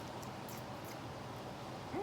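Soft chewing with a few faint wet mouth clicks in the first second, over a steady low background hum.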